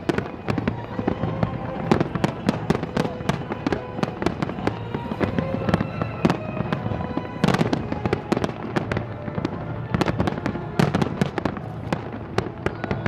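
Fireworks display: a continuous run of bangs and crackling bursts, with denser volleys about seven and a half seconds in and again near eleven seconds.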